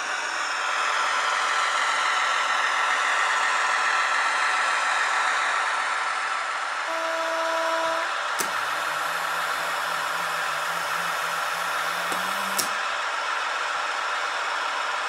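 Piko H0 model Kaluga diesel shunter with a sound decoder: a steady run of motor and track noise, a horn toot of about one second some seven seconds in, then a low diesel engine drone that rises slightly in pitch between two sharp clicks about four seconds apart.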